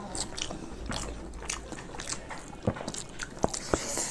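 Eating sounds: wet chewing, lip smacks and small clicks of mouths eating beef curry and khichuri by hand, with a few sharper smacks near the end.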